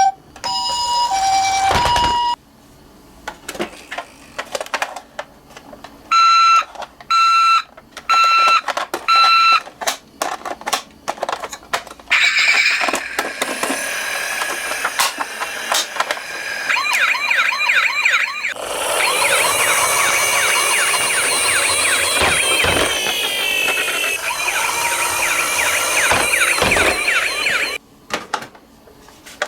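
Electronic sirens of toy ambulance and police cars: a two-tone hi-lo ambulance siren at the start, four short beeps a few seconds later, then a long warbling siren for over a quarter of a minute, with plastic clicks and rattles between them.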